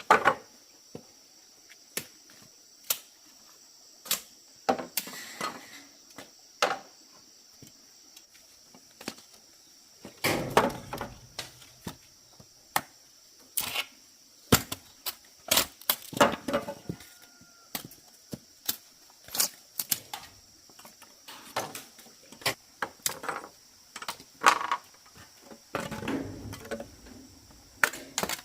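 Irregular sharp knocks and cracks of bamboo being worked by hand, coming singly and in quick clusters, with a couple of longer scraping, rustling stretches.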